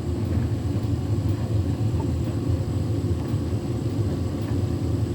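Tumble dryer running on a synthetics cycle, its drum turning with a steady low hum.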